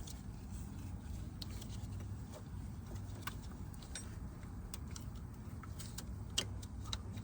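Scattered light metallic clicks and clinks of a wrench and loose parts being handled during car repair, the sharpest about six seconds in, over a steady low rumble.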